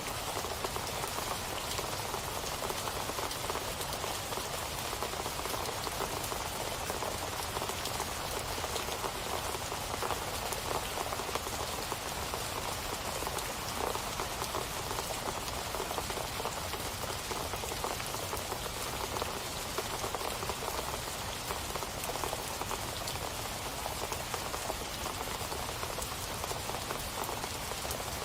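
Steady rain falling and pattering on surfaces, a dense even hiss of many small drop impacts with no change in intensity.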